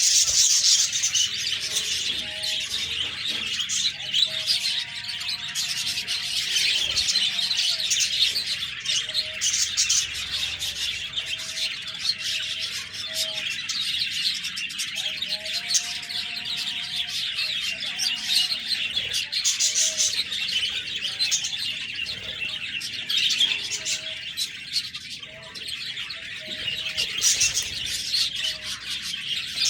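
Flock of budgerigars chattering and chirping without a break, a dense mass of high twittering calls.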